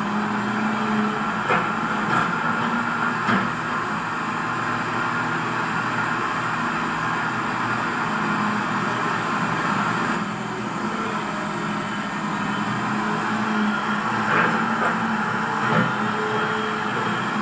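Radio-controlled model excavator running steadily with a motor and gear whine, with a few short clicks now and then.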